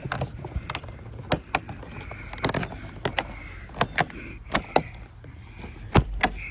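Irregular sharp clicks and snaps of a siding panel being worked with a siding removal tool as it is pushed to lock back into place, with the loudest snap near the end.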